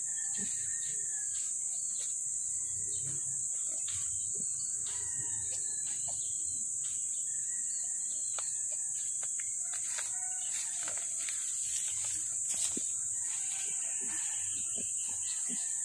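Black sow and her newborn piglets during farrowing: faint short squeaks and low grunts, over a steady high-pitched hiss.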